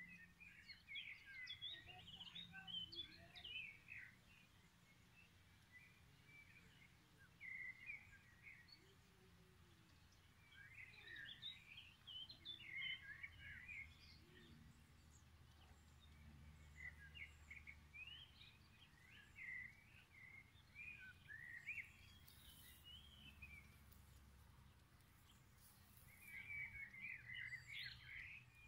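Birds chirping and twittering faintly in short bouts every few seconds, over a low steady background hum.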